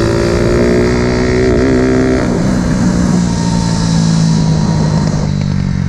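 Small motorcycle engine under throttle, its pitch climbing slowly for about two seconds, then dropping suddenly and running on steadily at a lower pitch, with wind rush over it.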